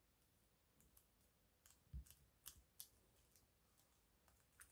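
Faint crinkling and short creasing clicks of a small folded sheet of colored origami paper being pressed and tucked between the fingers, with a soft low bump about two seconds in.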